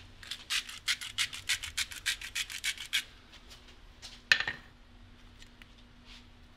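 Salt being dispensed over a pile of fresh fries in quick, even strokes, about twenty in under three seconds. About four seconds in, a small ceramic bowl is set down on the wooden cutting board with one sharp knock.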